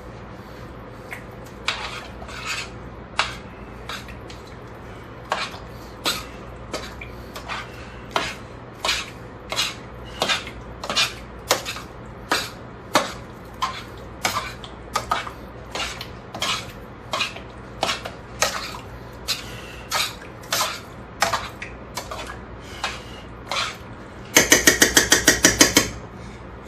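A spoon stirring thick sauce in a large cooking pot, clattering and scraping against the pot's sides about once or twice a second. Near the end comes a louder, fast rattle of about eight to ten knocks a second for about two seconds.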